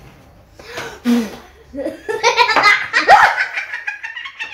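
A woman and a girl laughing together: a few short breathy bursts, then about two seconds in a loud, rapid fit of laughter.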